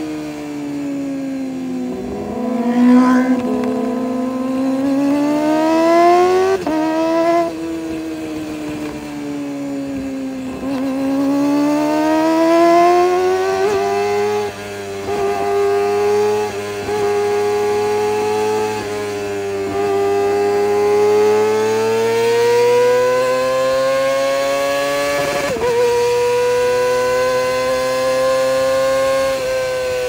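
Kawasaki ZX-25R's 249 cc inline-four through an Orion aftermarket exhaust, revving high and rising and falling in pitch under way. Three sudden brief drops in pitch, about a quarter of the way in, about halfway and near the end, mark gear changes.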